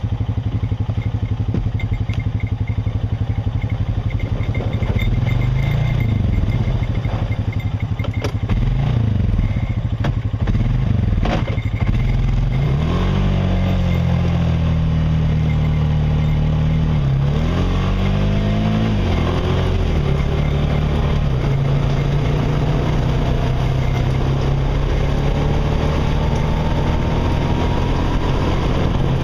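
Honda Rancher ATV's single-cylinder four-stroke engine running while riding a trail, its pitch rising and falling repeatedly with the throttle before settling into a steadier pull. A few sharp knocks come in the middle.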